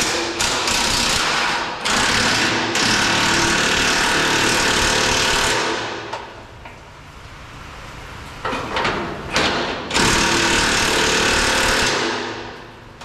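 Impact wrench running on the strap rod nuts holding down the deicing tank. It goes in a long run of about six seconds with two short breaks, then a few quick bursts, then another run of about two seconds near the end.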